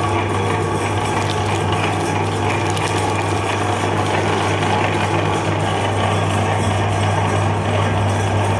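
Electric meat grinder running with a steady low motor hum while its auger grinds frozen ice cream bars and their wooden sticks.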